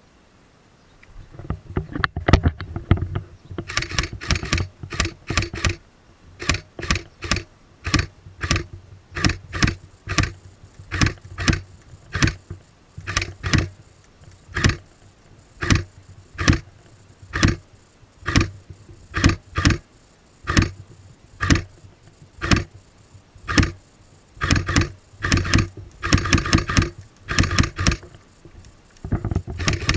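Footsteps and rattling gear of an airsoft player moving at a steady walk or jog, about three thumps every two seconds, starting a second in, with busier stretches of jostling near the start and past the middle.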